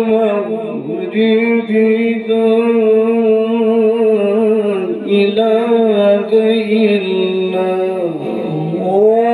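A man reciting the Quran in long, ornamented melodic phrases, holding each note and gliding slowly between pitches, heard through a microphone and loudspeaker. Near the end the pitch dips and climbs back up into the next held note.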